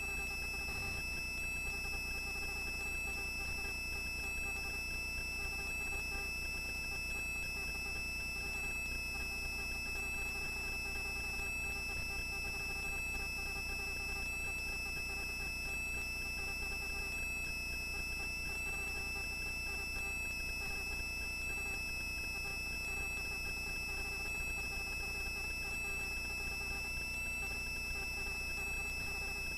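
Helicopter on the ground after landing, heard through the cabin intercom: a steady high-pitched whine over a low hum.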